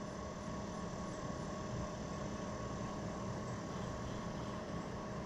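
A steady mechanical hum with a few constant tones, unchanging throughout, like a motor or fan running.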